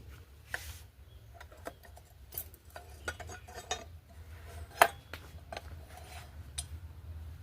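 Scattered light metallic clinks and knocks, as of steel tools or workpieces being handled and set down, the sharpest about five seconds in, over a steady low hum.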